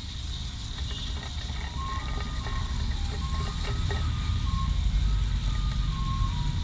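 High-pressure washer running as it sprays an oily motorcycle chain clean: a steady low motor drone with spray hiss. A string of short beeping tones at changing pitches sounds over it.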